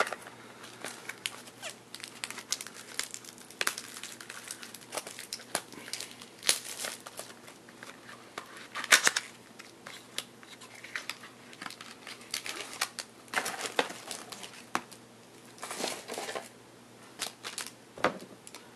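Foil card-pack wrapper and plastic wrap crinkling and tearing as trading-card packs are opened by hand: a run of irregular crackles with a few louder rips.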